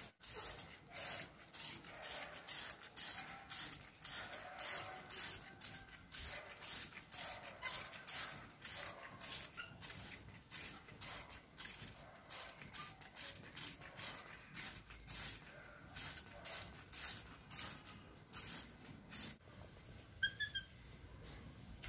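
Hand trigger spray bottle misting plants: short hissing spritzes, about two a second, that stop a couple of seconds before the end.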